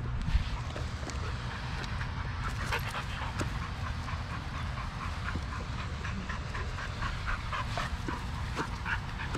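A dog panting hard and fast close by, in quick repeated breaths, over a steady low rumble, with a brief thump near the start.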